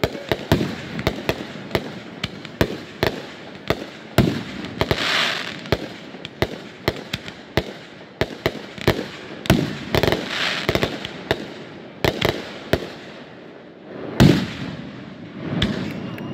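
Aerial fireworks bursting overhead in a fast, irregular run of sharp bangs and pops, with short stretches of hissing crackle between them and one loudest bang near the end.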